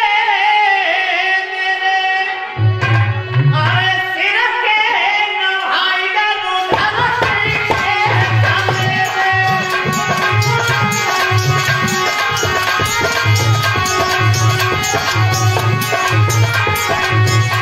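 A man singing a long, wavering held line over harmonium chords. About two and a half seconds in a hand drum comes in, and from about a third of the way through it settles into a fast, even folk rhythm with the harmonium.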